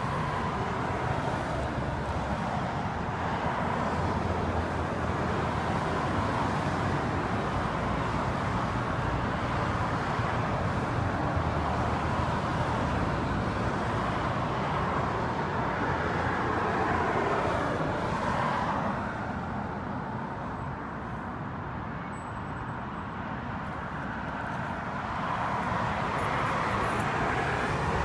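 Steady road traffic noise from passing cars. It eases off about two-thirds of the way through, then builds again near the end.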